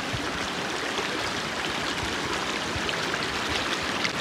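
Shallow, clear mountain river rippling steadily over a bed of stones and pebbles.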